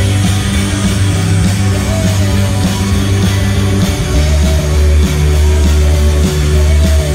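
Live rock band playing loudly: electric guitars over drums and a heavy low end. The low bass note drops to a lower one about four seconds in.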